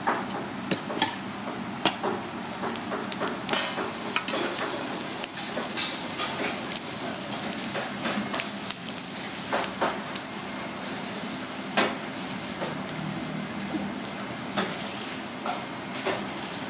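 Irregular clinks and knocks of metal utensils and cookware being handled in food preparation, over a steady hiss.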